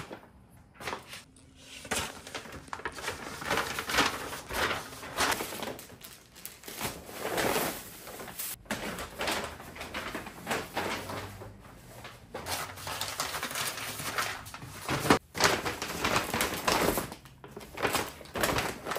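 Groceries being unpacked and put away: irregular rustling and crinkling of bags and packaging, with items set down and a few sharp knocks.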